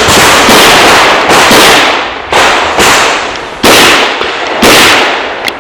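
Handgun shots fired in a rapid string on a pistol-match stage: several close together, then four single shots about half a second to a second apart, each ringing out after the crack.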